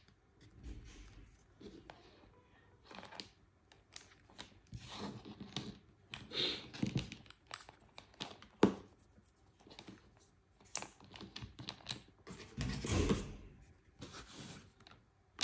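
Hands handling a small plastic controller and its charging cables: irregular rustling, soft knocks and a few sharp clicks. A louder rustle comes near the end as a paper booklet is slid across the table.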